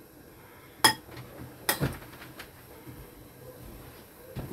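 A utensil clinking against a bowl as seasoning sauce is stirred: two sharp clinks in the first two seconds, then a few fainter taps.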